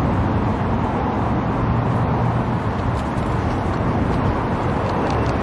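Steady rushing roar of nearby road traffic with a low rumble underneath.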